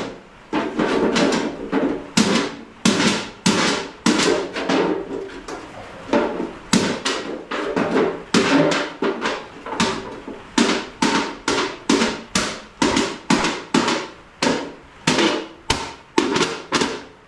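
A long series of hard strikes, about two a second at an uneven pace, each with a brief ring, with a short pause about five seconds in.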